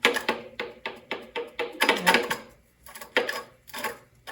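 E-bike rear freewheel turned by hand, giving an irregular metallic clicking clatter in three bursts. It sounds bad: its internal pawls are not working.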